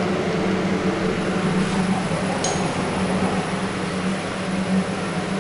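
Steady hum of an OTIS Gen2 machine-room-less lift car travelling down its shaft, heard from inside the car, with one short click about two and a half seconds in.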